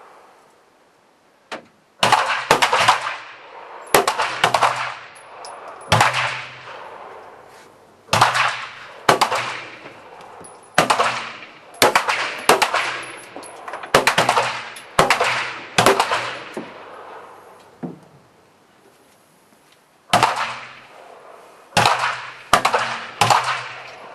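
Pistols fired by several shooters at once on an outdoor range, in an irregular, unsynchronised string of shots, some two or three in quick succession. Each shot is sharp and trails off in an echo that lasts about a second. There is a lull near the start and another about three-quarters of the way through.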